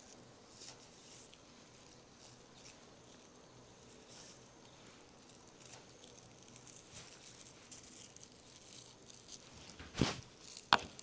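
Dried lavender stems rustling and crackling softly as they are handled and sorted into bundles, with two sharp knocks near the end.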